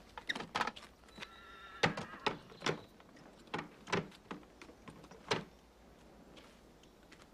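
Scattered sharp clicks and knocks of a horse-drawn carriage's door latch and door being worked open, with a short wavering horse whinny about a second in.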